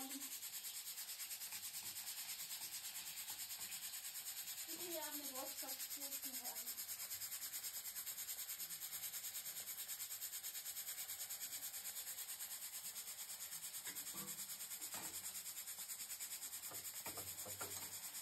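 Boiled potatoes frying in oil in a steel kadai on a gas stove: a steady sizzling hiss, with a few spoon scrapes and clinks against the pan near the end.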